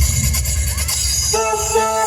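Music played loud through the BSS Ramayana sound system, with heavy subwoofer bass. About halfway through, a held melody line comes in over the bass.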